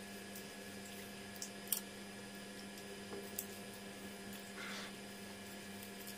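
Faint, soft squishy sounds of fingers picking apart cooked fish on a plate, with a few small ticks and a brief rustle a little past the middle, over a steady low hum.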